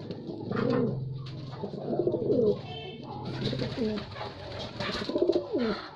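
Domestic pigeons cooing, several low rolling coos in turn. From about halfway a pigeon pecks grain from a metal tin in quick light taps.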